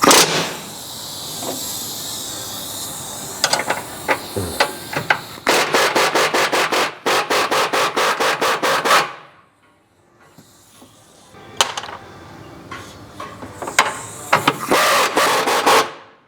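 Tool work on the suspension: rapid, evenly spaced rattling strokes, about four a second, in one long run in the middle and another near the end.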